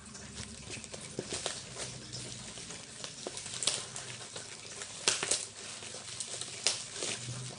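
A package being handled and cut open: rustling and crinkling of packaging, with scattered sharp clicks and snips.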